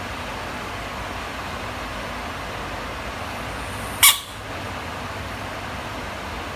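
A frog giving one short, sharp, high-pitched scream about four seconds in, over a steady background hiss.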